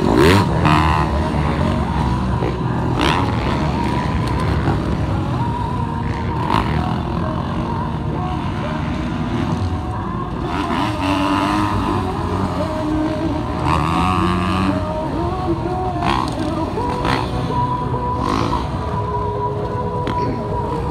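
Several motocross dirt bikes riding the track, their engines revving up and down.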